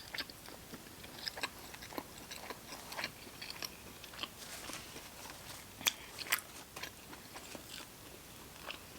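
Someone chewing and biting naked chicken tenders: soft, wet mouth clicks and small crunches, with two sharper clicks about six seconds in.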